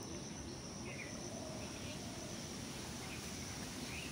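Low, steady background noise with crickets chirping faintly in a continuous high band, and a few faint short chirps scattered through.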